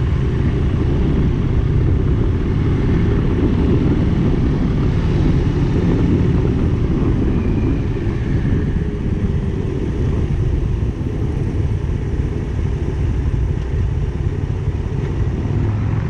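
Motorcycle engine running at a steady speed while riding, with a heavy low rumble that eases slightly about eleven seconds in.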